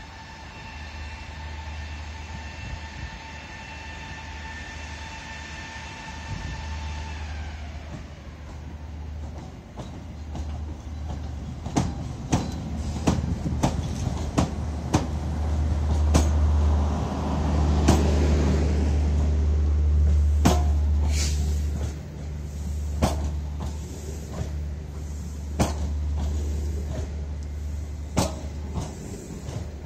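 Strizh train arriving, led by an EP20 electric locomotive. A steady whine of several tones slides down and stops about seven seconds in. The locomotive then passes with a deep rumble that is loudest about halfway through, and the Talgo coaches' wheels clack over the rail joints, the clacks spacing out as the train slows.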